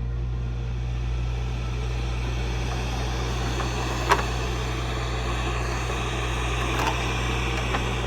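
Steady radio static: a constant low hum under an even hiss, with a sharp click about four seconds in and a couple of fainter crackles near the end.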